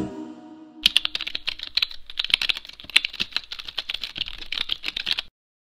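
The tail of a music track fades out, then rapid, irregular clicking of typing on a keyboard runs for about four and a half seconds and stops suddenly.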